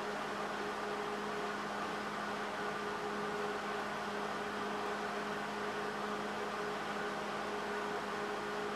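Steady machine hum over a hiss, unchanging throughout: workshop room tone.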